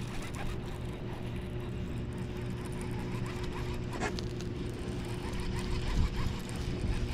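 Electric trolling motor on a kayak humming steadily, with scattered small squeaks and clicks and one sharper click about four seconds in.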